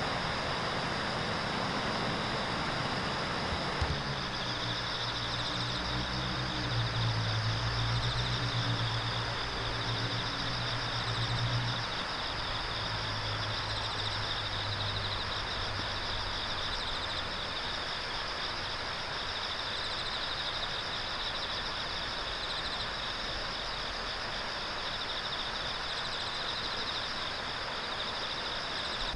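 Riverside outdoor ambience: a steady, even rush of noise, with a continuous high insect trill that sets in about four seconds in. A low engine hum from a passing vehicle is heard through roughly the first twelve seconds, then fades.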